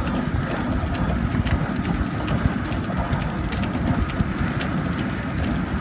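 Chain-driven rail cart rolling along a steel-pipe track: a steady low rumble of the wheels on the rails with a regular light clicking running over it.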